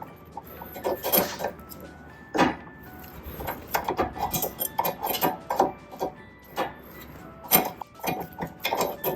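Steel hand tools and suspension hardware clinking and knocking on metal in irregular sharp strikes, with a few louder clanks, during work on a MINI Cooper S front anti-roll bar (stabilizer) link.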